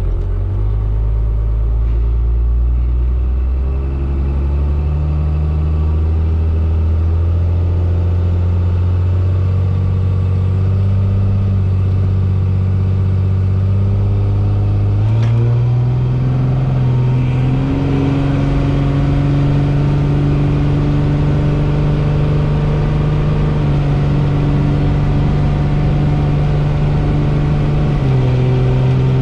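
Turbocharged 12-valve Cummins 5.9 L inline-six diesel of a second-generation Dodge Ram, heard from inside the cab, revved against the brake at the start line to build boost, its pitch slowly climbing. About halfway through the truck launches: the engine note jumps, steps up and holds high as it pulls down the drag strip, then drops with an upshift near the end. It is launched on only about 10 pounds of boost to spare a hot transmission and torque converter.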